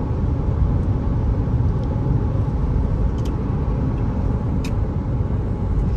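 Steady low road rumble of a car driving, heard from inside the cabin, with a couple of faint clicks about three and four and a half seconds in.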